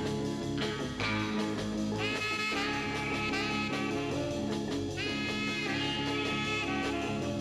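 Instrumental background music in a swing style.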